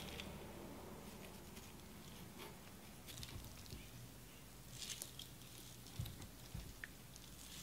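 Faint wet squishing of thick yogurt being whisked and folded in a glass bowl with a small wire whisk and a silicone spatula, with a couple of light knocks about two-thirds of the way in.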